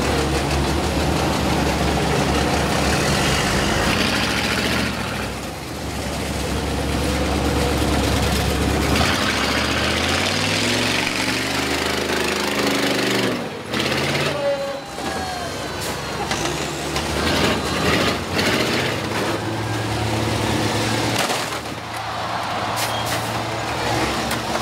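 Large school bus engines running and revving, their pitch climbing and falling about halfway through as a bus accelerates, while buses ram into each other.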